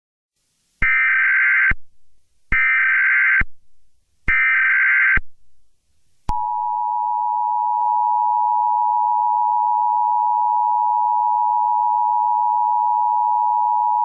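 Emergency Alert System tones: three one-second digital SAME header tones, then the steady two-tone EAS attention signal starting about six seconds in.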